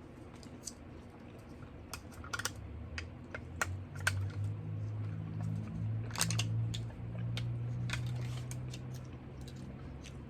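People eating pizza and buffalo wings: scattered soft clicks and smacks of chewing and biting. A low hum comes in about three seconds in and fades near the end.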